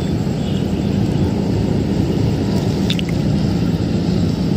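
Steady low rumble of motor vehicle traffic, with a constant engine hum and no break.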